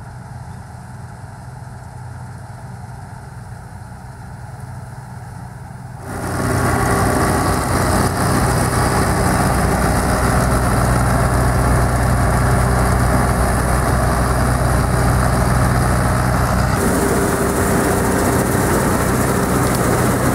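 John Deere 330 combine harvester running while harvesting oats: a steady engine drone under the noise of its cutting and threshing machinery, much louder and fuller from about six seconds in.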